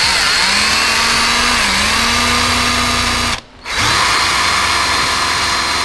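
Cordless drill running at speed, boring a mounting hole through a taped body panel for a widebody over-fender. It stops for a moment about three and a half seconds in, then starts up again.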